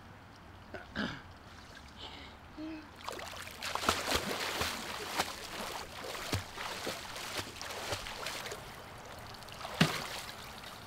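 A person swimming front crawl in a pool: irregular splashing of arms and legs beating the water, starting about three seconds in, with one louder sharp splash near the end.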